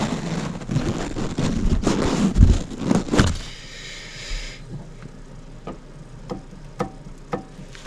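Scraping and clattering handling of metal engine parts, then a few separate light metallic clicks as the bare connecting rod of a Dnepr MT-11 boxer engine is rocked by hand to check its slight side-to-side play.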